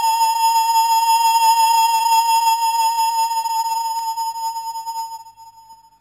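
Background music: one long held high flute note with a slight waver, fading away near the end.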